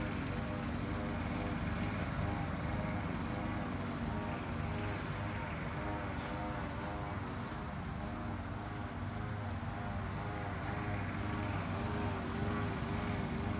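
Several Indian fantail pigeons cooing over and over, their rising-and-falling calls overlapping one another, over a steady low hum.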